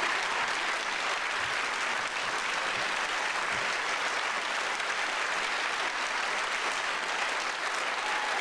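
Audience applauding steadily at the end of a piano performance.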